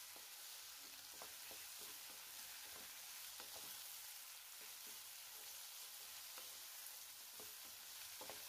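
Carrot and capsicum strips sautéing in oil in a frying pan: a faint, steady sizzle, with a spatula stirring them and making scattered light scrapes and taps.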